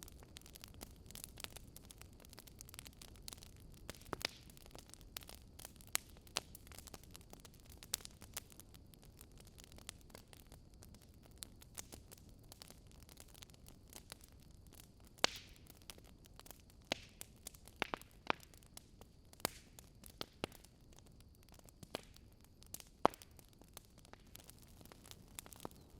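Wood fire crackling: irregular sharp pops and snaps from burning logs over a faint low hiss, with a louder pop about halfway through and the loudest near the end.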